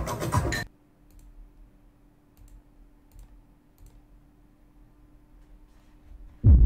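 Quiet room tone with a steady low hum and a few faint clicks. A loud noisy sound cuts off under a second in, and a loud low rumbling sound starts abruptly near the end.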